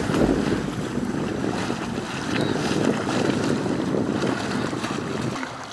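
Wind buffeting the microphone over moving river water, an even rushing noise.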